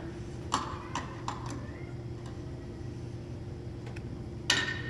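A few light clicks and knocks of magic-trick props being handled, a yellow cube and a hollow box, with a louder knock near the end, over a steady low hum.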